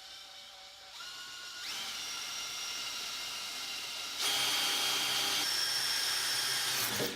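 Electric drill running, drilling a hole for tapping into the lathe: a steady motor whine that steps up twice in the first two seconds and gets louder about four seconds in.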